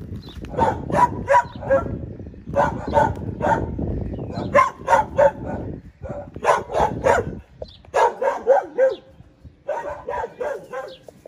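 Dogs barking in repeated bursts of several quick barks, one burst every second or two.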